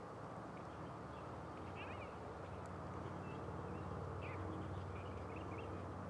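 Small birds chirping in short, quick calls again and again, over a steady faint low rumble of outdoor background noise.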